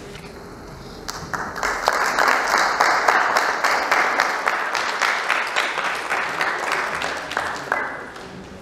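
Audience applauding. The clapping starts about a second in and fades out near the end.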